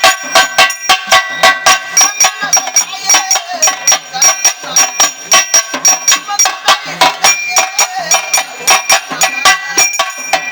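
Pambai isai: Tamil folk temple drumming on pambai drums in a fast, steady beat of about three strokes a second, with metallic ringing over the strokes.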